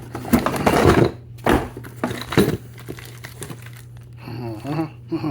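Packaging rustling and crinkling as a brake kit is unboxed, with two sharp knocks a second apart as parts are handled.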